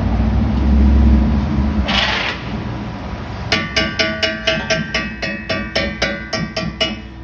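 A low mechanical rumble with a short hiss about two seconds in, then plucked-string music with a quick, even beat of about four notes a second starting about halfway through.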